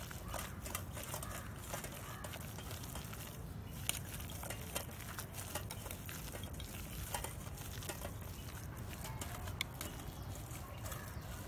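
Wire whisk stirring a thick, wet batter of coarsely ground dal with chopped onion and coriander in a steel bowl, with soft wet stirring and irregular light clicks of wire against steel. A steady low rumble sits underneath.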